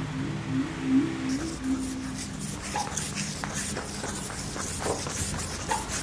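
Hurried footsteps and the rattle of a wheeled hospital stretcher trolley pushed across a tiled floor: a quick run of short, sharp ticks and knocks.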